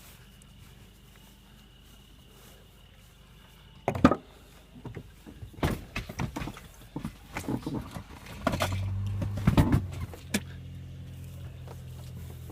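Sharp clicks and knocks from a car being handled, then a car engine starting a little over halfway through and settling into a steady idle.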